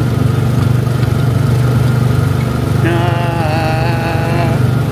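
Small gasoline engine of a Tomorrowland Speedway ride car running steadily while the car is driven along the track. A wavering held tone sounds over it for about a second and a half past the middle.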